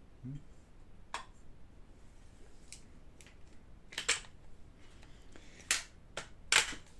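Sharp irregular clicks and knocks of an HK G28 gas blowback airsoft rifle's parts being handled and fitted back together, about eight in all, the loudest near the end.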